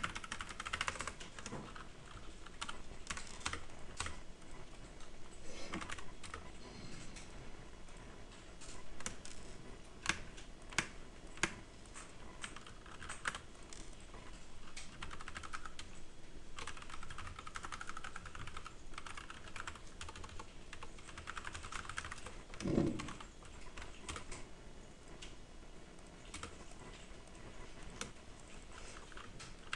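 Computer keyboard being typed on, irregular runs of key clicks with short pauses, as text is entered into a CAD drawing. A short low sound stands out about three quarters of the way through.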